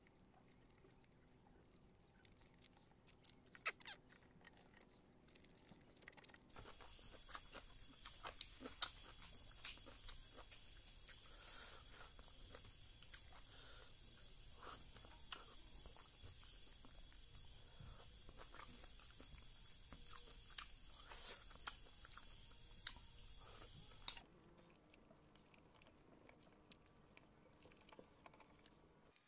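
Close-up eating by hand: chewing, lip smacks and fingers working rice and fish curry, heard as scattered soft clicks and smacks. A steady high hiss comes in abruptly about six seconds in and cuts off abruptly a few seconds before the end.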